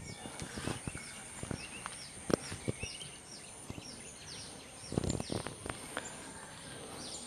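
Garden ambience: a bird repeating short falling chirps about twice a second over a steady high insect drone, with scattered crunches and rustles of footsteps that are loudest about five seconds in.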